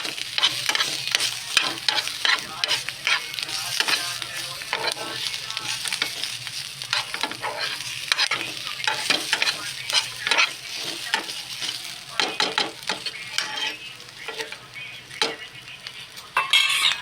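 Spiced potatoes sizzling in oil in a pan while a spatula stirs them, with frequent irregular scrapes and clicks against the pan. A louder scrape comes near the end.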